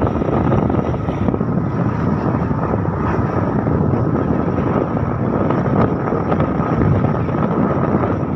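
A motorcycle running along the road, its engine under a steady rush of wind on the microphone.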